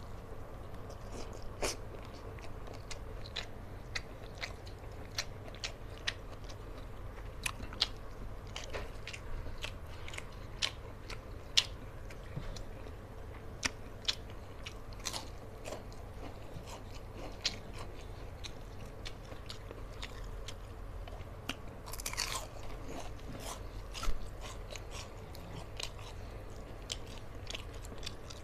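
A person chewing and crunching a mouthful of rice and crisp fried fish eaten by hand, close to the microphone, with many sharp crunchy clicks and mouth smacks.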